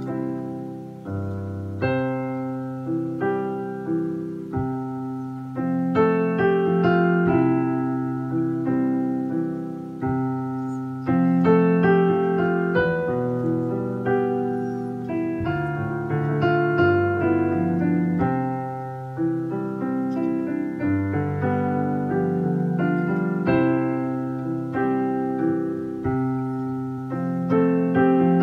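Background piano music: a slow piece of struck notes and chords, each fading after it is played.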